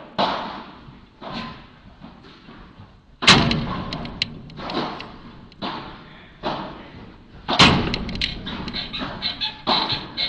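Padel rally: the ball struck back and forth with solid padel rackets, each hit a sharp pop with a short echo in the indoor hall, about seven hits, two much louder ones around three seconds in and near eight seconds. A quick run of short ticks follows near the end.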